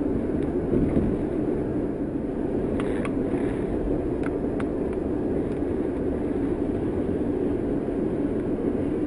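Steady road and engine rumble from inside a moving car's cabin, with a few faint clicks about three to five seconds in.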